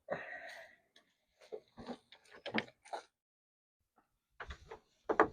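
Clicks and knocks from a Nissan 350Z exterior door handle being worked loose from the door by hand. There is a short scuffing rustle at the start, then scattered sharp clicks over the next couple of seconds and another cluster near the end.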